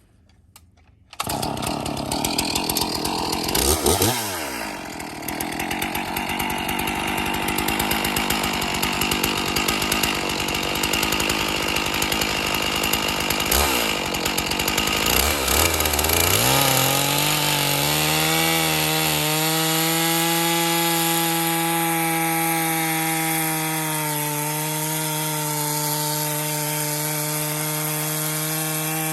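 Stihl MS461 chainsaw on a Granberg vertical mini-mill: it comes in about a second in, revs up and down a few times, then from about two-thirds through holds a steady high pitch as it cuts the side off a log.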